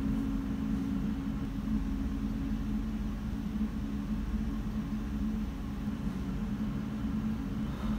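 A steady low hum at a constant pitch, with a faint rumble underneath.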